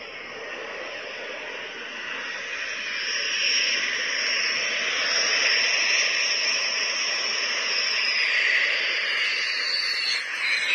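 A Dassault Rafale fighter's twin turbofan jet engines on landing approach: a rushing jet noise with a high whine that grows louder as the jet nears, then drops in pitch as it passes close near the end.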